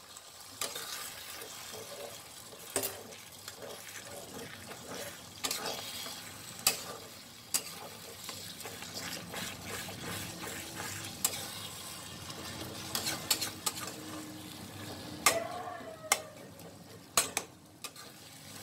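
Beaten egg frying bhurji-style in a kadhai beside cooked chicken, sizzling steadily while a spatula stirs and scrapes it, with irregular sharp clicks of the spatula against the pan.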